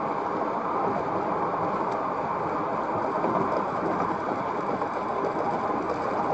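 Steady road and tyre noise with engine hum from a car driving along a highway, heard from inside the cabin through a dash cam.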